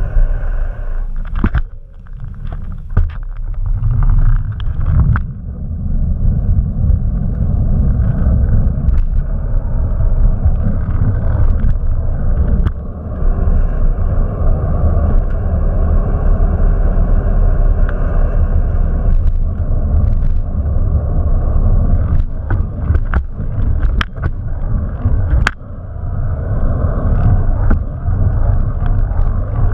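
Wind buffeting the microphone of a bicycle-mounted camera while riding, a loud low rumble mixed with the bicycle's tyres rolling on pavement. Scattered sharp clicks and rattles come from the bike and its mount, with a few brief lulls.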